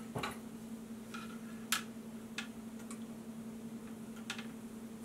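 A handful of light, irregular clicks and taps from small hand tools and wire being handled on a workbench, over a steady electrical hum.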